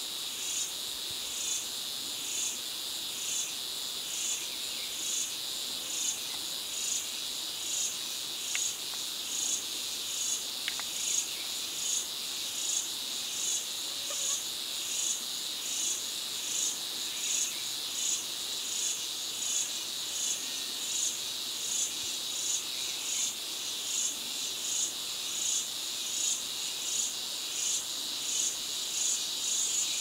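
Insects calling: a steady high buzz, with a higher pulsing chirp that repeats just under twice a second.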